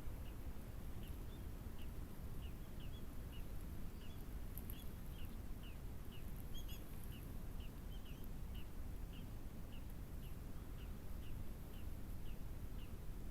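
A bird's short, slightly falling chirp repeated steadily about twice a second, over a low steady outdoor rumble.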